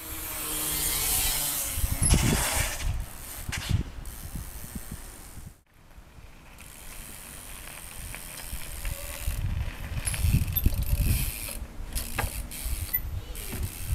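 Street trials bicycle riding: the rear hub's freewheel ratchet clicking as it coasts, with tyre noise on pavement and several sharp knocks as the bike lands hops.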